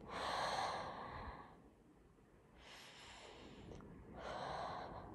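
A child taking slow, deep mindful breaths close to the microphone: three long, airy breath sounds, the first right away and the strongest, a fainter one about three seconds in, and another near the end.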